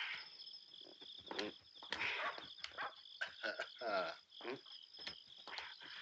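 Crickets chirping steadily, with scattered short clicks and a brief falling voice-like sound about four seconds in.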